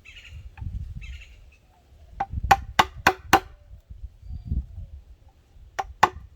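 Hammer striking a screwdriver used as a makeshift chisel to knock out a small section of mahogany: a quick run of five sharp taps about two seconds in, then two more near the end.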